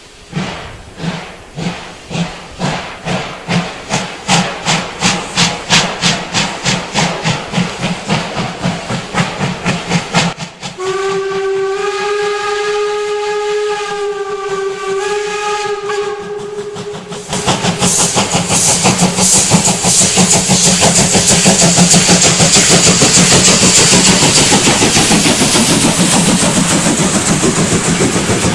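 Steam locomotive working hard with a passenger train, its exhaust beats growing louder and faster as it approaches. About eleven seconds in it sounds a chord steam whistle for around six seconds, then passes close by with a loud hiss of steam and rapid exhaust, followed by the coaches rolling past.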